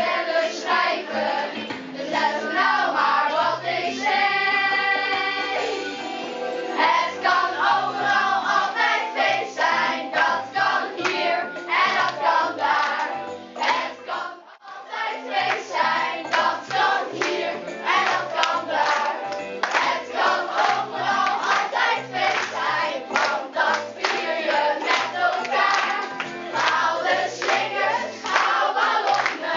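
A group of children singing a song together over music with a steady beat. The music drops out for a moment about halfway through, then goes on.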